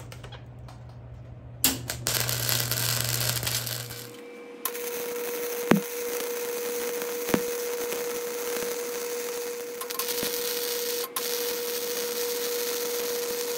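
Flux-core MIG welding arc sizzling on steel as weld beads are laid: a short run starting about two seconds in, then a longer continuous run from about five seconds in, with a steady tone under it.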